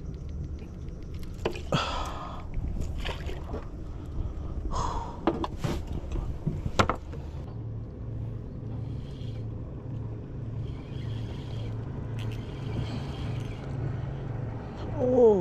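Fishing tackle being handled: clicks and knocks from a baited rig and a spinning reel, over a low boat-engine hum that settles into an even, pulsing drone about halfway through. A short, loud falling sound comes near the end.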